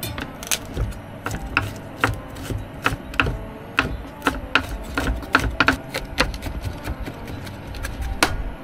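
Kitchen knife chopping garlic on a cutting board: a run of sharp, irregular taps, about two to three a second.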